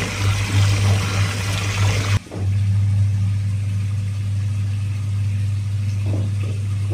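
Water gushing from a pipe spout into a pond, stopping abruptly about two seconds in. A steady low hum runs beneath it and carries on alone after the water stops.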